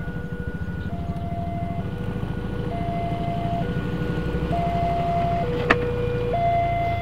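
Railway level-crossing warning alarm sounding, a steady two-tone signal alternating high and low about once a second: it warns that a train is approaching. A motor scooter's engine runs low underneath, and there is a single sharp click near the end.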